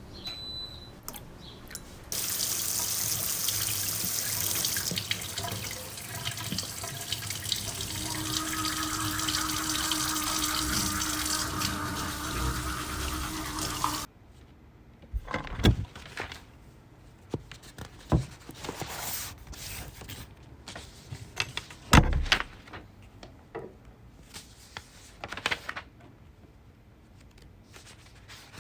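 Water running from a tap into a sink, a steady tone joining the rush partway through; it cuts off suddenly about halfway. Scattered knocks and clicks of objects being handled follow.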